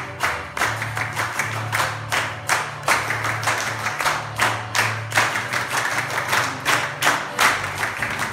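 Hands clapping in a steady rhythm, about two claps a second, in time with dance music that has a low bass line.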